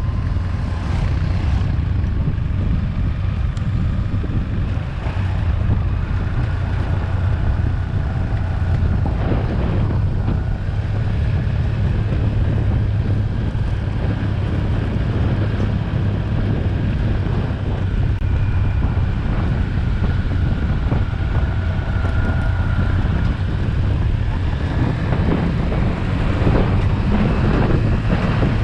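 Steady low engine and road rumble of a moving vehicle, with wind buffeting the microphone.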